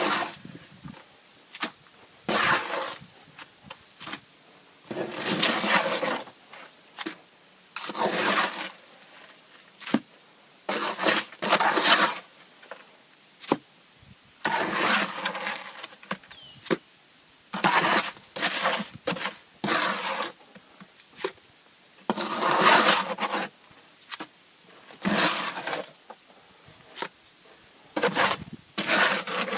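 A shovel scraping and scooping fill material in repeated strokes, one every two to three seconds, with short knocks in between.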